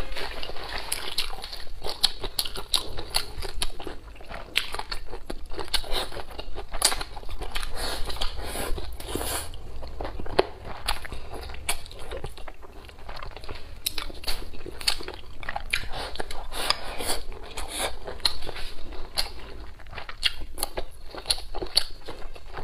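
Close-miked chewing of a mouthful of cooked eggplant and peppers: a dense, irregular run of small wet clicks and crackles.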